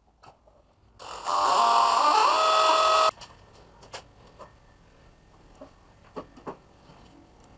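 Handheld electric drill running for about two seconds, its motor whine shifting in pitch partway through, then stopping abruptly; a few light clicks and knocks follow.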